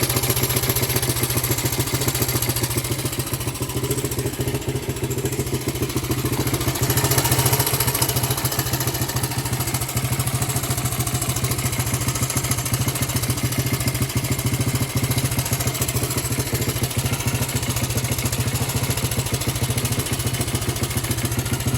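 Honda 125cc single-cylinder four-stroke motorcycle engine running steadily at idle on its first test run. It dips a little a few seconds in, then picks up slightly before settling back.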